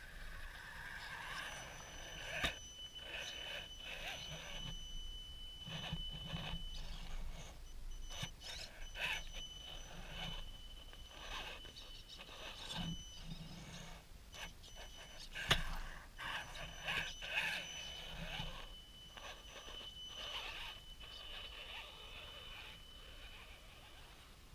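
Radio-controlled Axial SCX10 rock crawler driving over rough trail: a steady high electric motor whine that starts and stops as the throttle is worked, with scattered clicks, crunches and scrapes of tyres and chassis on rocks and dirt. A sharp knock comes about two and a half seconds in and a louder one about fifteen seconds in.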